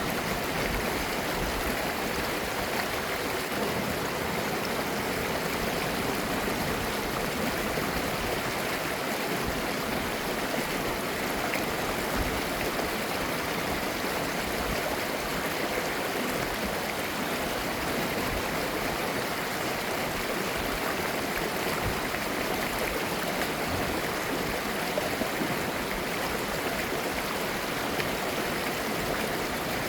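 Mountain stream flowing over rocks, a steady rushing and babbling of clear water.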